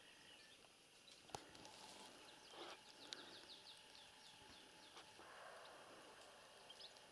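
Quiet open meadow with faint birdsong: a run of about eight short, falling chirps about three seconds in, and a few faint clicks.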